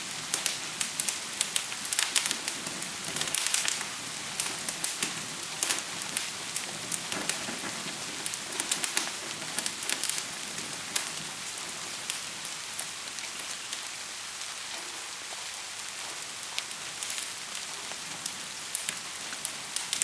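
Gentle rain falling as a steady hiss, with a fire crackling over it in sharp pops. The crackles come thick and fast through the first half, thin out a little past the middle, and pick up again near the end.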